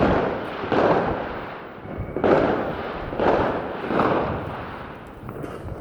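Firecrackers going off in the street: about five loud bangs over four seconds, each followed by a long echoing fade.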